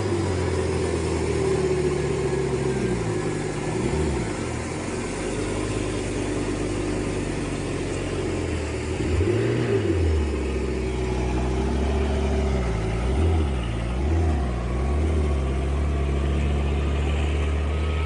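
Heavy log truck's diesel engine running under load, its pitch dipping and rising several times as it is throttled up and down.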